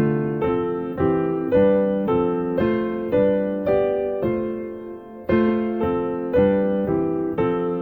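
Piano playing a chain of drop 2 voiced chords, one struck about every half second, following the melodic line of broken chords up the major scale. There is a short pause near 5 s before the chords resume.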